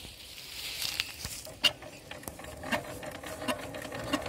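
Kisan stationary engine being hand-cranked: mechanical clicking from the crank and the turning engine, a few separate clicks at first, then a regular run of clicks that speeds up toward the end.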